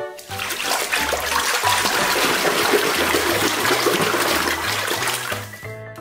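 Water rushing and splashing from a nozzle into a shallow tub of water, starting just after the start and cutting off about half a second before the end. Light background music with a steady bass line plays underneath.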